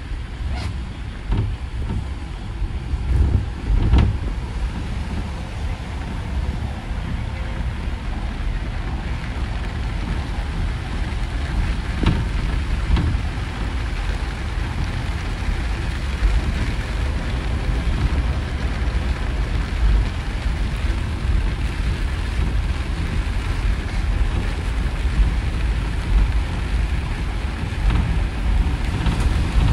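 City bus driving on a rain-wet road, heard from inside the cabin: a steady low rumble with the hiss of tyres on wet tarmac, and a few short knocks and rattles about four seconds in and again around twelve seconds.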